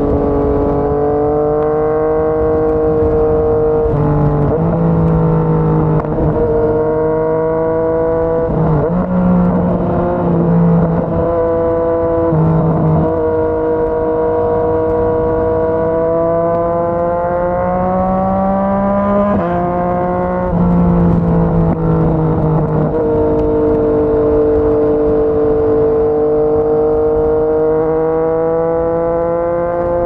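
Yamaha MT-09's inline-three engine through a Yoshimura R55 slip-on exhaust, heard from the rider's seat while cruising. The exhaust note stays steady, its pitch drifting slowly up and down, with a few short dips and jumps in pitch as the throttle or gear changes.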